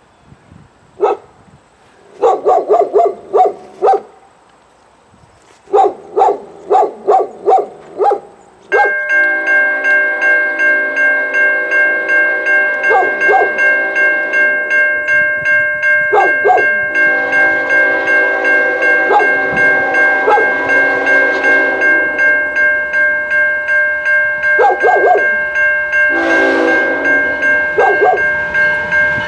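A dog barks in quick runs of several barks. About nine seconds in, the air horn of an approaching CN ES44AC diesel locomotive starts a long, steady chord of several notes, with more barks over it.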